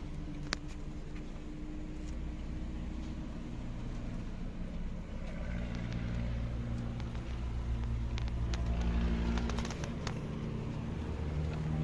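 Car engine running, heard from inside the car as a steady low hum whose pitch dips and rises a little. There is a sharp click about half a second in and a few more clicks near the end.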